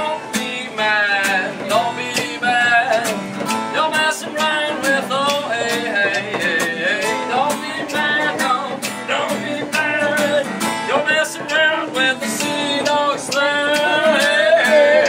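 A song played on two acoustic guitars, strummed, with a voice singing over them.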